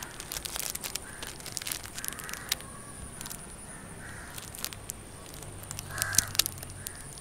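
Crows cawing repeatedly over a steady outdoor background. A few sharp clicks come about six seconds in and are the loudest sound.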